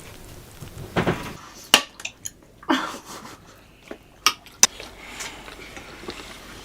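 Handling sounds: two brief rustling swishes and a handful of sharp clicks and knocks, the sharpest about two seconds in and a close pair a little after four seconds.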